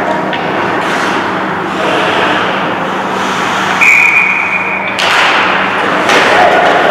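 Ice hockey game sounds in an arena: skates and sticks on the ice over a steady rink hum. About four seconds in, a referee's whistle is blown once for about a second, followed by two sharp knocks against the boards.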